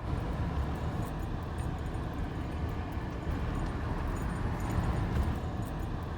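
Steady road traffic noise from vehicles on a busy highway, a low continuous rumble.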